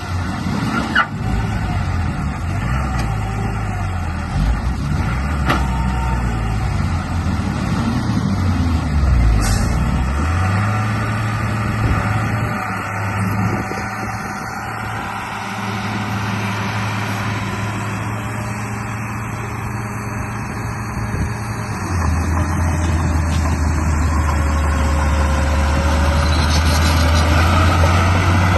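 Heavy engine running. Its pitch dips and rises several times in the first ten seconds, then holds steady, and about 22 seconds in it steps to a louder, lower-pitched steady run.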